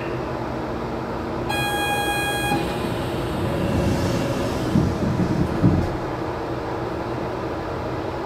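Port Liner automated guideway train standing at a station platform with a steady low hum. A single electronic beep lasts about a second, starting about a second and a half in, followed by low rumbling and two thumps around five seconds in.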